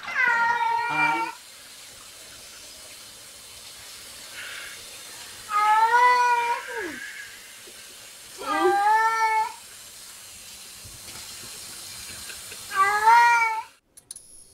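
Domestic cat meowing four times, long meows of about a second each spaced a few seconds apart, the second ending in a downward slide. A steady hiss runs underneath.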